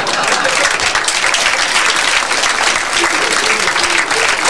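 Live audience applauding, a dense and steady clatter of many hands clapping after a punchline.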